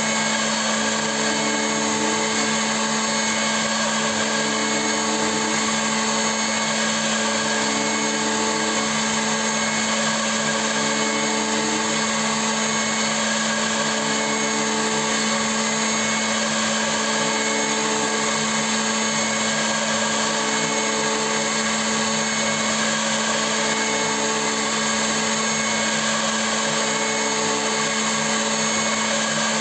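CNC milling machine running: a steady spindle whine with a faint change that repeats about every two seconds.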